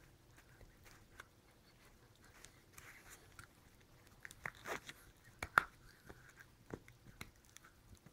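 A miniature schnauzer gnawing a white chew stick: faint, scattered crunches and clicks, with a few louder crunches a little past halfway.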